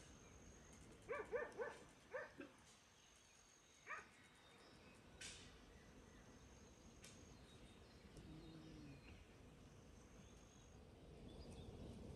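A dog barking faintly: a quick run of four short yaps about a second in, two more just after, and a single one a couple of seconds later.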